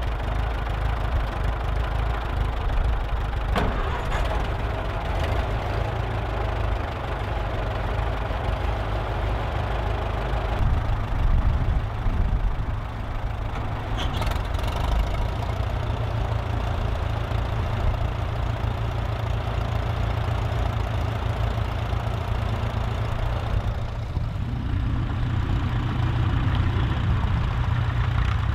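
Vintage David Brown Cropmaster tractor engines running steadily at low revs as the tractors are driven slowly past, a continuous low engine drone.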